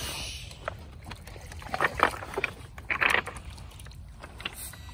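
Wind buffeting the microphone in a steady low rumble, with a few short clattering noises about two and three seconds in.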